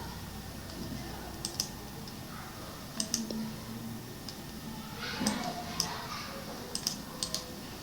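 Scattered single key presses on a computer keyboard, a dozen or so sharp clicks spread unevenly over a faint steady background hum.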